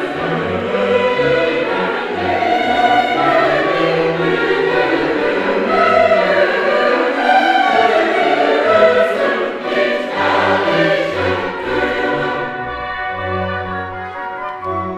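A choir singing with instrumental accompaniment. About three-quarters of the way through, the singing drops away and the instruments carry on alone with steady held notes.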